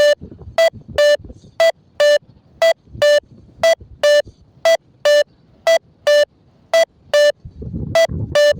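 XC Tracer variometer beeping in short regular pulses, about two a second, alternating between two slightly different pitches: the climb tone that signals rising air. A low rumble comes in near the end.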